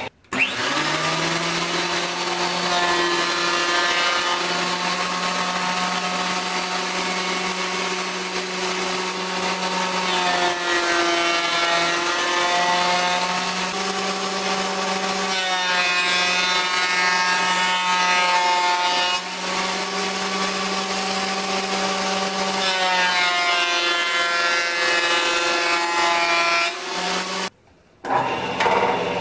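Benchtop thickness planer running and planing wooden boards: a steady motor whine over a low hum, its pitch sagging and recovering as the boards feed through the cutterhead. Near the end it cuts off abruptly and a bandsaw is heard running.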